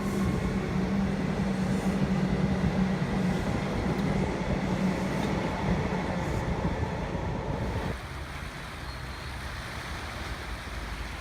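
Steady low motor hum over a rushing noise, as of a vehicle under way. It drops away suddenly about eight seconds in, leaving a quieter background hiss.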